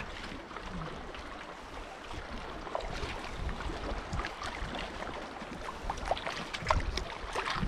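Water splashing and lapping in small irregular bursts, with wind on the microphone.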